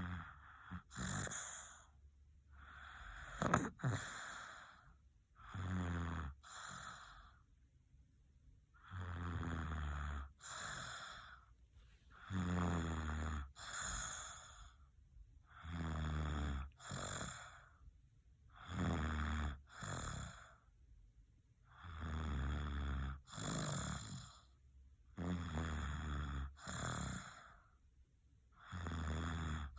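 Sleeping baby snoring and snuffling, with a slow, even rhythm of about one breath every three seconds. Each breath comes in two parts: a low buzzing snore and a breathier puff.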